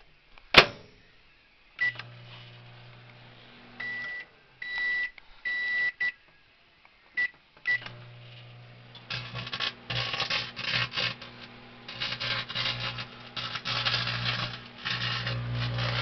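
Microwave oven: a sharp click, then a run of keypad beeps as it is set, then its low running hum. About a second after the hum starts, the aluminium foil inside begins arcing, with rapid, irregular crackling and snapping that keeps on to the end.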